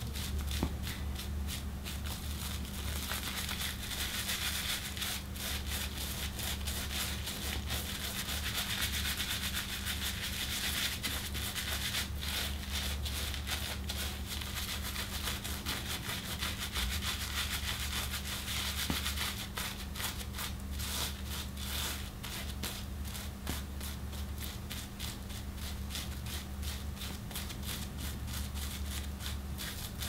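Straight razor with a replaceable Feather blade scraping through lathered stubble, a continuous run of fine crackling, scratchy strokes.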